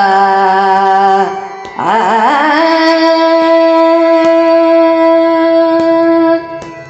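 A woman's voice in a Carnatic song in raga Bageshree, drawing out a vowel in two long phrases. Each phrase opens with oscillating ornaments (gamakas), and the second settles into one long steady held note that stops about six seconds in, leaving a faint accompaniment.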